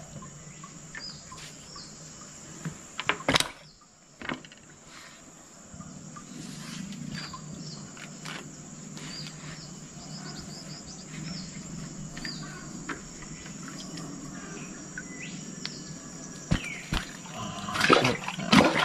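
Steady high-pitched drone of insects, with scattered small clicks and knocks as a caught tilapia is handled and unhooked. A cluster of louder knocks comes near the end.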